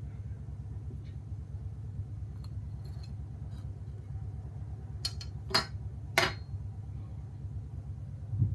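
A china plate clinking twice, two sharp knocks a little over half a second apart, as it is handled and set down, over a steady low hum.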